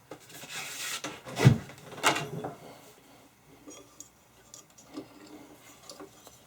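Handling noises as a rubber V-belt is tried onto the pulleys of a belt/disc sander: a rubbing sound about half a second in, a couple of knocks around a second and a half and two seconds, then light scattered clicks of metal parts.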